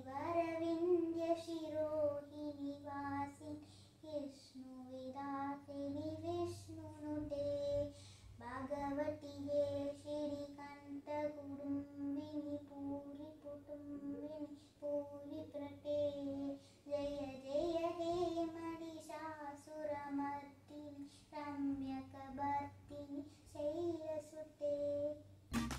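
A young girl singing a devotional prayer song in a single melody line, with long held notes and gentle glides between them.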